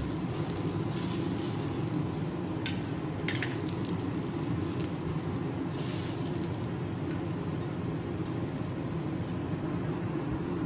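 Steak sizzling on a teppanyaki steel griddle, with short scrapes and clinks of the chef's metal spatula and knife against the griddle and plates, most of them in the first half.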